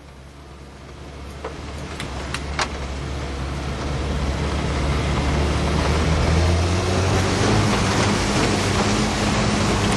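Vehicle engine running, heard from inside the cab as it drives over rough ground: a low hum that grows louder over the first six seconds or so and then holds steady. A few short clicks come in the first three seconds.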